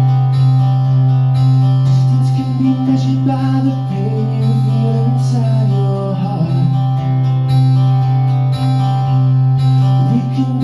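Live acoustic band music: strummed acoustic guitar over a sustained bass guitar line and cajon beats, with a sung vocal line in the middle.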